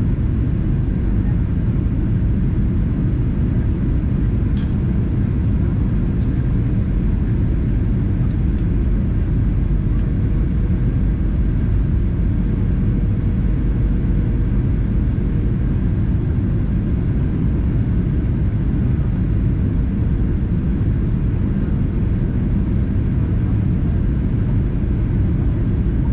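Steady low cabin rumble of a Boeing 737-800 with its CFM56 jet engines running, heard from a seat beside the wing. Two faint ticks come about four and eight seconds in.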